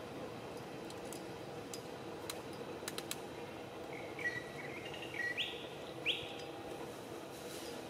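A bird chirping: a short run of high chirps about four to six seconds in, the last two sweeping sharply upward. A few faint clicks come earlier, over a steady low hum.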